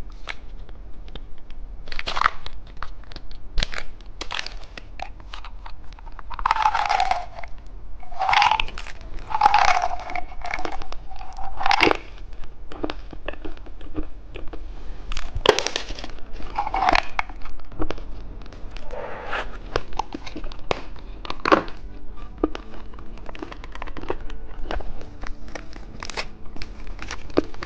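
Plastic candy packaging crinkling and tearing, mixed with crunching as the rainbow bean candy is bitten, in a run of irregular sharp crackles.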